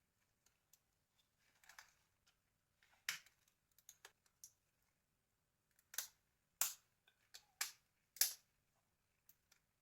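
Scattered light clicks and taps of small plastic phone-housing parts from a Nokia 5610 XpressMusic being handled during teardown, with a handful of sharper clicks about three seconds in and over the second half.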